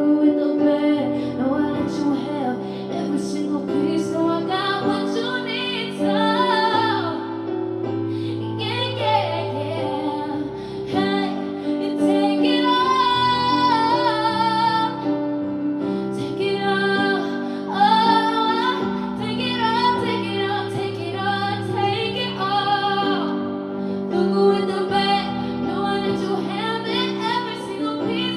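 A woman singing a slow R&B song with live instrumental backing, her voice sliding between held notes over sustained chords.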